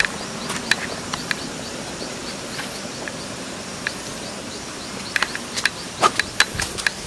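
Steady outdoor background noise with scattered sharp clicks and snaps, most of them bunched about five to seven seconds in.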